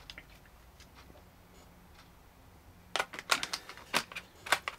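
Short, sharp clicks and taps of steel driver bits and the bit holder being fitted back into the plastic case of an ORIA 60-in-1 precision screwdriver set. The clicks begin about three seconds in, after a quiet stretch, and come about seven times in under two seconds.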